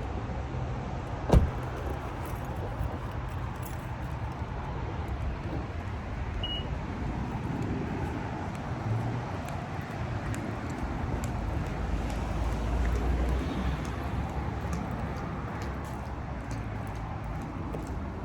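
Steady outdoor rumble of road traffic, with one sharp knock about a second in and a few faint clicks near the end.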